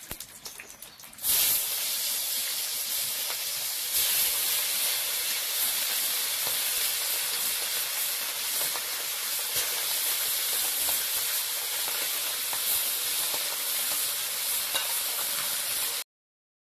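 Small fish frying in hot oil in a wok: a loud, even sizzle with little spattering ticks starts suddenly about a second in, holds steady, and cuts off abruptly near the end.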